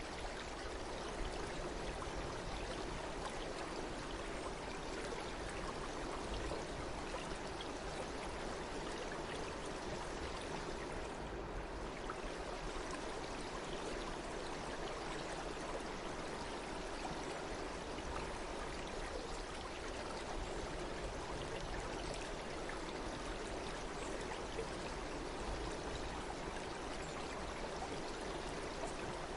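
Stream water running steadily, an even rushing with no breaks.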